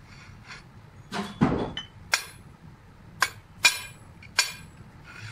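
Several sharp metallic clinks at irregular intervals, some ringing briefly: a steel tool knocking against a large machined steel disc.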